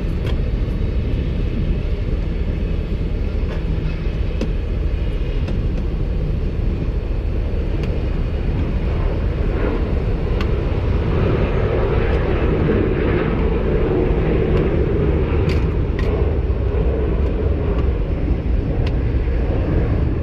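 Steady low engine rumble of machinery on an airport ramp. A few light clicks near the end come from a hose coupling being handled and tightened on the lavatory dump chute.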